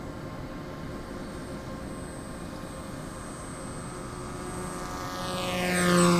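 Electric R/C foam pusher plane's brushless motor (E-max CF2822) and propeller whining steadily in flight, then growing louder as the plane makes a low pass, loudest about six seconds in, with the pitch dropping as it goes by.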